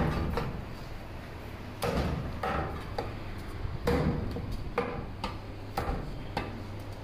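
A heavy cleaver chops through fish on a thick wooden chopping block: about nine sharp, unevenly spaced knocks.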